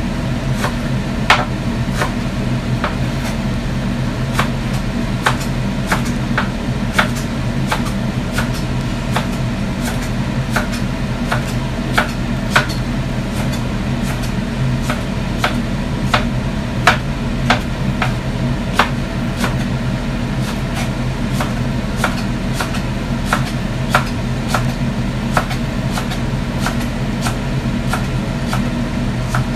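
A spatula knocking and scraping against a wok as cabbage is stir-fried, in sharp irregular clicks about once or twice a second, over a steady low hum.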